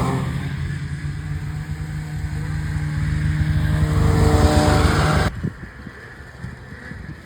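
Two-stroke snowmobile engine running hard on a hill climb, easing off and then building again, before cutting off suddenly about five seconds in; a quieter, steady wind-like noise follows.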